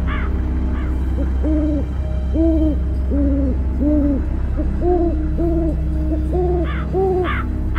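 Owl hooting in a quick series of about ten short hoots, over a steady low rumble.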